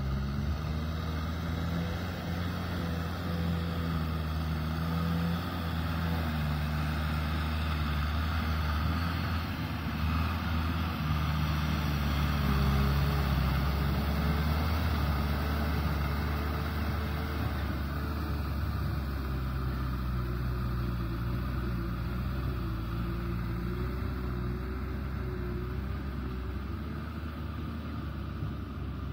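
Kubota M6040SU tractor's four-cylinder diesel engine working steadily under load as it pulls a rotavator through wet mud. It grows louder as the tractor passes close about halfway through, then fades as it moves away.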